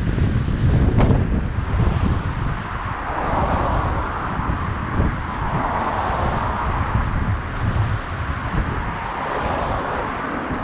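Wind buffeting the microphone in gusts, with a vehicle passing over the bridge in the middle, its tyre hiss swelling and fading away.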